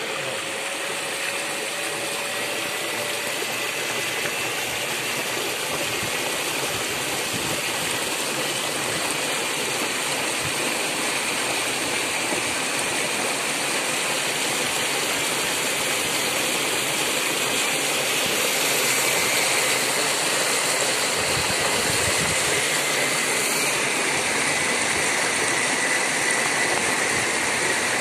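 Steady rushing and splashing of floodwater churned up by a moving van, with a faint thin high whine running underneath; it grows a little louder partway through.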